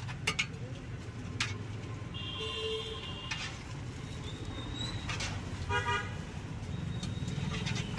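Road traffic running steadily, with short vehicle horn toots: one about two seconds in and another near six seconds. A few sharp clicks come through it.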